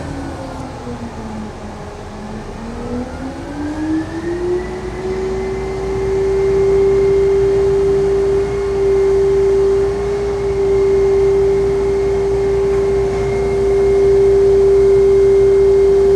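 Heavy crane's engine running with a strong whine that dips in pitch for a couple of seconds, then climbs about four seconds in and holds steady at the higher speed, as the machine works under lifting load.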